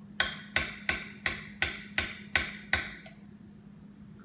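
Eight sharp knocks of kitchenware in an even rhythm, about three a second, each dying away quickly.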